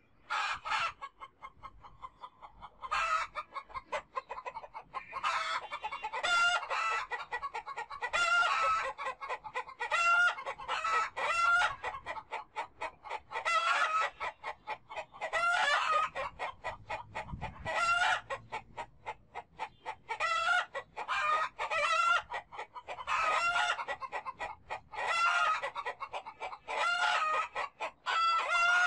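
A flock of chickens clucking and calling, with loud pitched calls recurring every second or two over steady clucking.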